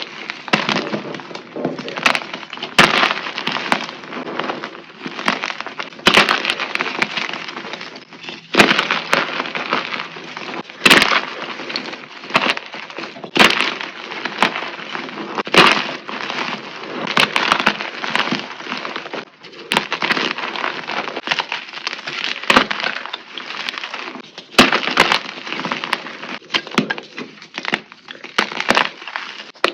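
Something brittle being crushed over and over: dense crunching and crackling with sharp snaps, in repeated surges every second or two.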